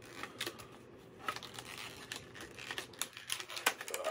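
Crinkly plastic packaging being handled and pulled open, with scattered light clicks.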